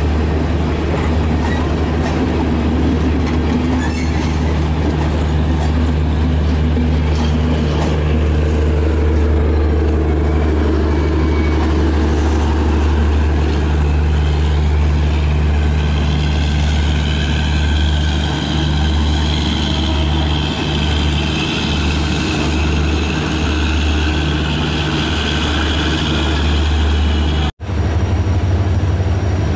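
Passenger train coaches rolling slowly past under a steady low diesel drone, with higher squealing tones from the wheels coming and going in the second half. The sound cuts out for a moment near the end, and then a steady low diesel engine drone carries on.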